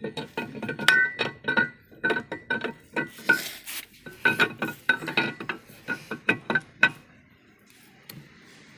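Metal tools or engine parts clinking and ringing in a quick, irregular run of sharp strikes, several a second, each with the same ringing note. The strikes stop about seven seconds in.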